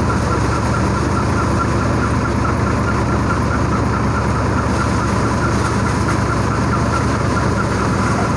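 Nipha three-fan threshing machine running steadily: a continuous low drone with a fast, regular ticking.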